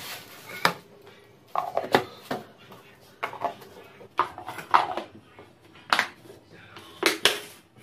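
Plastic food containers and lids being handled on a kitchen counter: a string of irregular clacks and knocks, with a plastic bag rustling near the start.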